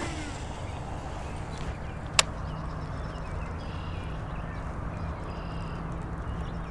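Baitcasting reel being cranked slowly through a slow-rolled chatterbait retrieve, giving a low steady whir, with one sharp click about two seconds in. Faint bird chirps come in around the middle.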